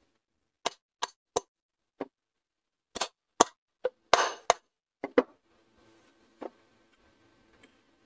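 A ceiling fan's metal end cover being knocked with a piece of wood, about a dozen light, irregular taps over five seconds and one more a little later, to seat the cover evenly onto the motor body.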